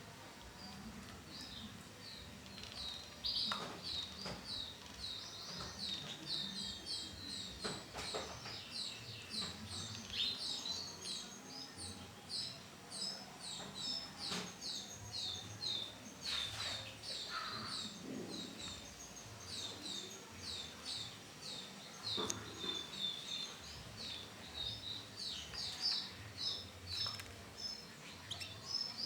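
Female canary calling: a steady run of short, high chirps, about two to three a second, with a few brief knocks in between.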